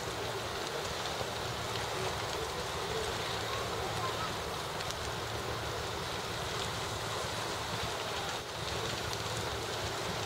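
Steady noise at a large structure fire: a fire engine running its pump with a low, even hum under the rush of hose water and burning flames, with a few faint crackles.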